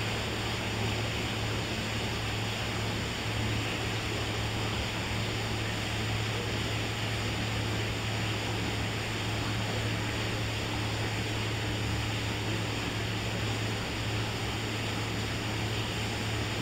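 Steady low hum with an even hiss over it, unchanging throughout: the background machinery of an aquarium hall.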